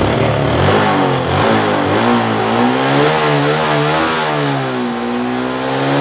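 Suzuki 115 cc scooter engine running just after starting, its revs rising and falling gently under light throttle.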